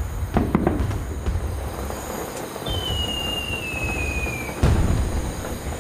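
Fireworks display: a few quick bangs, then a single whistle falling in pitch for about two seconds, ending in the loudest boom of the stretch, over a steady low rumble.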